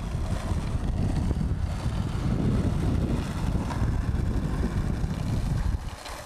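Skateboard wheels rolling on street asphalt: a steady low rumble with wind on the microphone, dropping away near the end.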